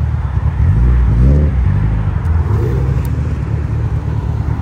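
Engines and exhausts of a line of sports cars (a Subaru WRX, Mitsubishi Lancer Evolutions and a Nissan GT-R) rumbling as they roll past at low speed, with one engine revving up briefly about a second in.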